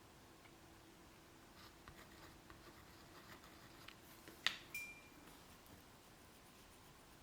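Faint taps and clicks of watercolour painting tools, with one sharper tap about four and a half seconds in that rings briefly.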